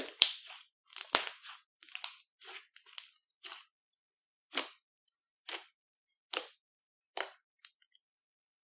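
Clear slime being squished and kneaded by hand: a run of short squishes, several close together at first, then one about every second.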